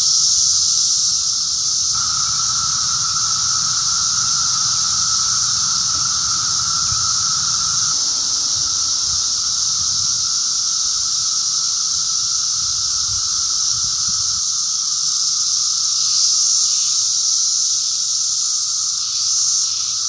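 Dense chorus of Brood X periodical cicadas (17-year cicadas), males singing massed mating calls: a steady high-pitched shrill with a lower droning call layered beneath it. The lower call is loudest from about two seconds in until about eight seconds in, then fades back into the mix.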